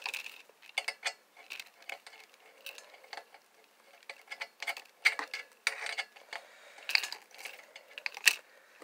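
Irregular light clicks and knocks of a small air compressor and its fittings being handled and turned over.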